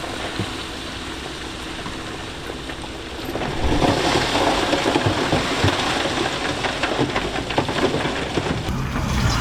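Loose stone being moved by heavy machinery: a dense rattle of tumbling rock over a running diesel engine. The rattle grows much louder about three and a half seconds in.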